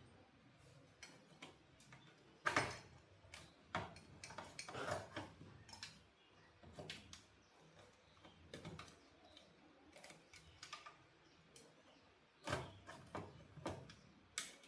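Irregular light clicks, taps and knocks of hands handling tools and parts during repair work on an old TV, with two sharper knocks about two and a half seconds in and near the end.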